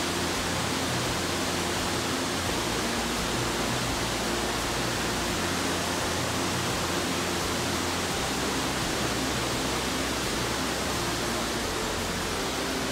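Steady rush of a white-water river and waterfall, running evenly without a break.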